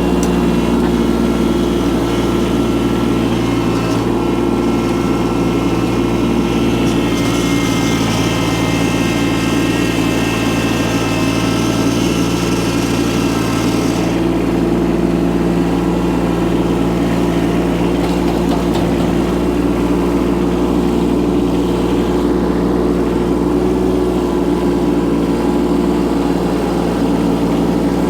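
Small engine of a Chinese micro excavator running steadily while it digs. A higher whine joins for several seconds partway through, then drops away.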